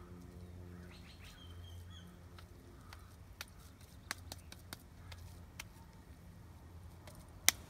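Hands patting a ground-beef burger patty into shape: a few scattered soft slaps and clicks, with a sharper click near the end, over a steady low hum. A bird chirps briefly about two seconds in.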